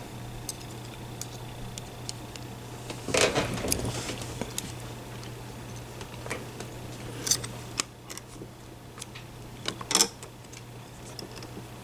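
Lock picking: small metallic clicks and scrapes of a pick and tension wrench being worked and readjusted in a lock, with a cluster of clicks about three seconds in and single sharper clicks later, over a steady low hum.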